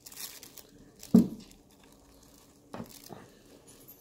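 Faint rustling and handling noise from paper packing material, with a short, louder sound about a second in and a smaller one near three seconds.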